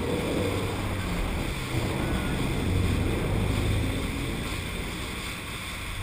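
Boat on the open sea: a steady low rumble of the engine under wind and wave noise.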